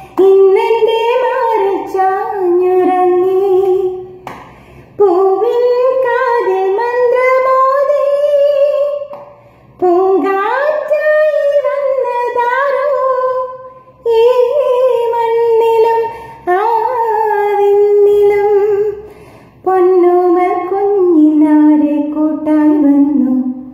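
A woman singing a Malayalam song solo and unaccompanied, in long held, sliding phrases with short breaths between them, six phrases in all.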